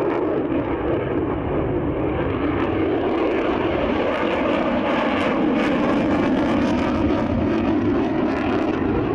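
Military jet aircraft's engine noise, loud and steady, cutting in suddenly at the start.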